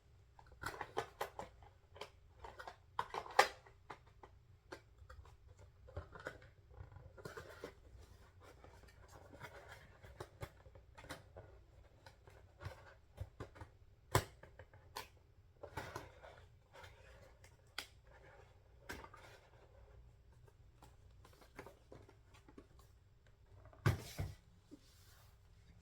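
Nail kit items and their packaging being handled and put away: scattered clicks, taps and brief rustles, with a few sharper knocks about 3 s in, about 14 s in and near the end.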